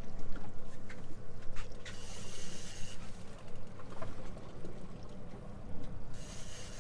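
Boat motor running steadily at trolling speed with water sloshing along the hull, and a few short bursts of hiss.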